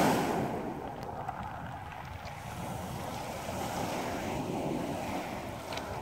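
Small lake waves breaking on a pebble shore and washing over the stones, with wind on the microphone. A wave's wash is loudest at the start and fades over about a second into a steady, lower wash, with a couple of faint pebble clicks.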